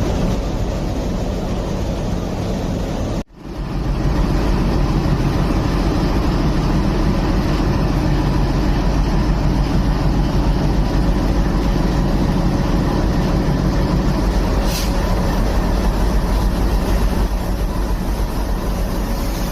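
ALCO diesel locomotive running with a steady, loud rumble, broken off sharply for an instant about 3 seconds in. A brief hiss cuts in about 15 seconds in.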